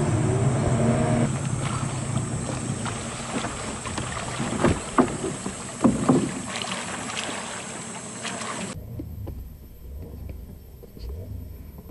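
Rushing water over a rocky stream bed with wind noise on the microphone. About nine seconds in it gives way to much quieter forest sound with a few faint taps.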